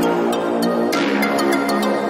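Background music: an electronic track with a steady beat and sustained synth notes.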